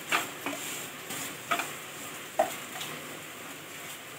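Wooden spatula scraping and stirring crumbled khoa and poppy seeds in ghee in a hot pan, over a light sizzle of the ghee. A few louder scrapes are spaced about a second apart.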